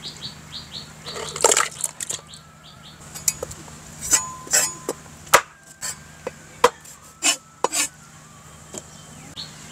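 Knife and metal plate clinking while fish is cut up on a board: a dozen or so sharp clinks at irregular intervals, some with a short ring.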